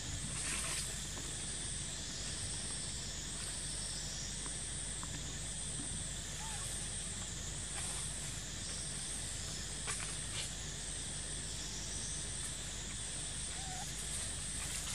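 Steady high-pitched drone of insects that swells and fades about once a second, over a low outdoor hum, with a couple of faint short chirps.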